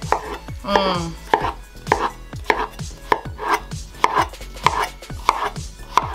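Chef's knife slicing a peeled cantaloupe on a plastic cutting board, each stroke ending in a short knock on the board. The cuts come at an even pace, about ten of them, a little under two a second.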